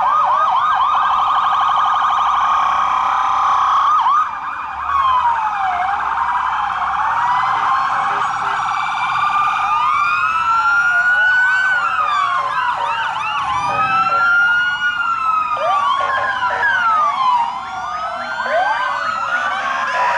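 Several police car electronic sirens sounding at once as squad cars pass. A rapid yelp dominates the first half over slower rising and falling wails. From about halfway through, more sirens join in a tangle of overlapping wails.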